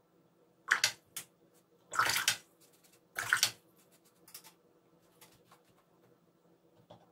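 Watercolour brush being worked in water and paint: five short, wet swishing sounds, the two loudest about two and three seconds in.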